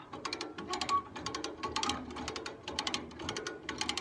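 Hand-cranked trailer winch being wound, its ratchet pawl clicking rapidly in uneven bursts as the strap to the Volkswagen Beetle is taken up.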